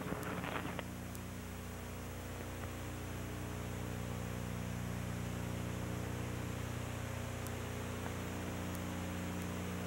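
Steady electrical mains hum, a buzzy stack of low tones, over constant hiss: the recording's own noise with no other sound.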